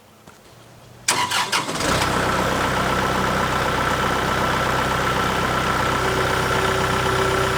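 An engine cranked over briefly by its starter, catching about two seconds in and settling into a steady idle.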